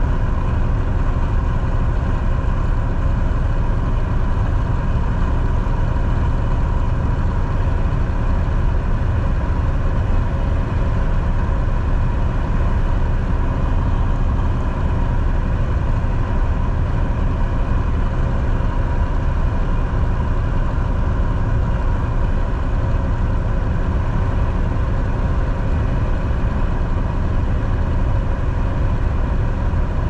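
Semi-truck cruising steadily on the highway: a constant low engine and road drone, with a few faint steady tones above it and no change in pace.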